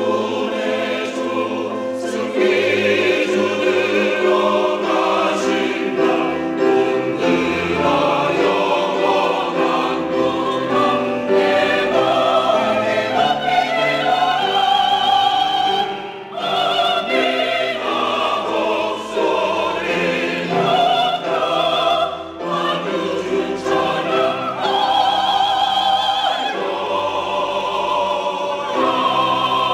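Mixed church choir of men and women singing a sacred anthem in Korean, in full harmony. The singing dips briefly twice between phrases about halfway through.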